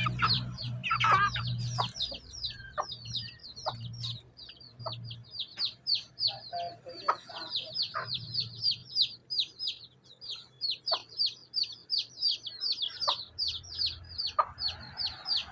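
Baby chicks peeping without pause: short, high, falling cheeps, several a second. An adult hen clucks now and then underneath.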